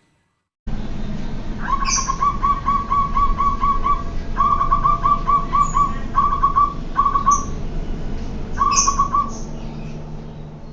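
Zebra dove (perkutut) singing: phrases of rapid, short cooing notes at about five a second, broken by brief pauses, starting abruptly a little under a second in. A few short high chirps sound over it, with a steady low hum in the background.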